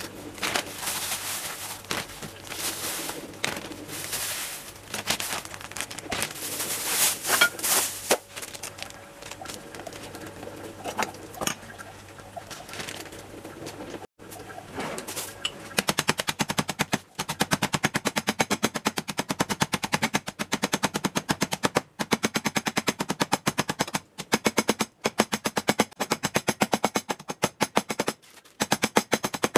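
Plastic zip-lock bag rustling and crinkling as it is handled and filled with nuts. About halfway through, a meat mallet starts pounding the nuts in the bag against the counter in fast repeated blows, crushing them, with a few short pauses.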